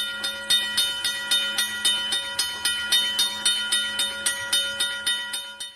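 Railroad grade-crossing bell ringing rapidly and evenly, about four strikes a second, fading out near the end.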